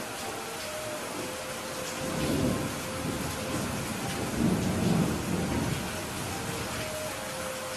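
Steady heavy rain falling, with thunder rumbling low twice: a swell about two seconds in and a louder, longer roll around the middle.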